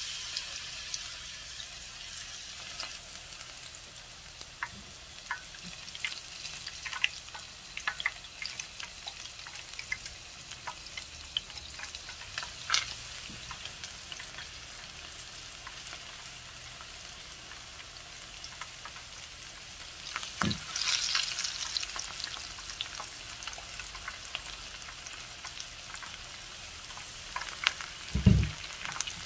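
Batter-coated crown daisy sprigs frying in hot oil in a pan: a steady sizzle full of small crackles that starts suddenly as the first sprig goes in and swells briefly about two-thirds of the way through. A dull knock near the end.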